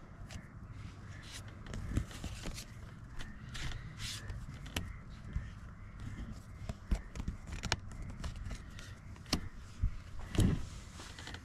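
Playing cards being handled and laid down, scattered light clicks and taps, with a brief call about ten seconds in.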